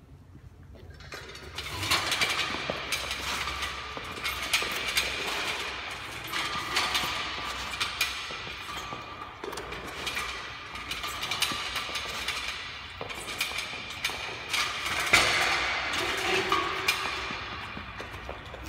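A weighted push/pull machine clanking and rattling as its lever handle is pushed and pulled and its stack of weight plates rises and falls. The rattling starts about a second and a half in and runs on unbroken.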